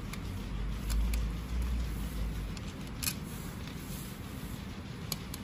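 Handling noise from hands working small screws and parts on a robot dog's leg housing: a few sharp clicks and light knocks, the loudest about three seconds in, over a low rumble in the first couple of seconds.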